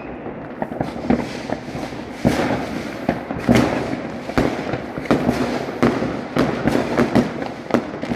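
Fireworks going off: a rapid, irregular string of bangs and crackles, many of them overlapping.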